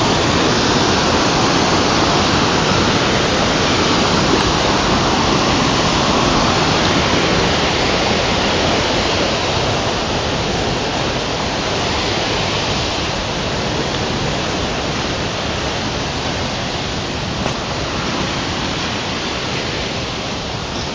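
Rain-swollen floodwater pouring over a low wall: a loud, steady rush of falling water, easing slightly in the second half.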